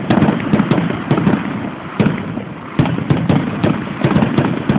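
Fireworks going off in quick succession: a dense run of bangs and crackling, with heavier bangs about two and three seconds in.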